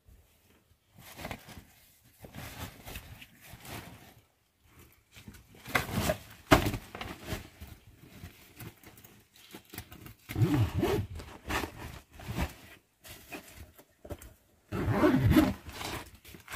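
A fabric backpack being handled: rustling, scraping and zipper sounds in irregular bursts. A few louder, low-pitched bursts come about two-thirds of the way in and again near the end.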